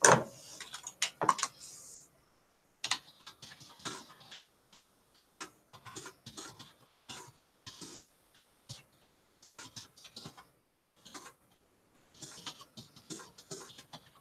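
Computer keyboard being typed on: irregular runs of light key clicks with short pauses between them, with one sharper click right at the start.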